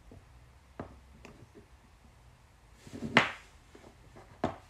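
Light metallic clicks from handling the parts of an opened combination padlock, with one louder clack about three seconds in as the lock's small metal back plate is set down on a wooden bench.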